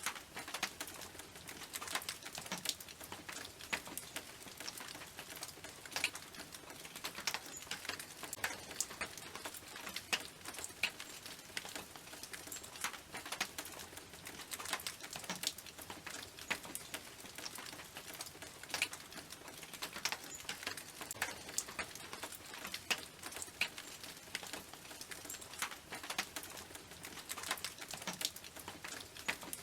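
Raindrops hitting a tin roof: a steady patter of irregular sharp ticks over a soft hiss.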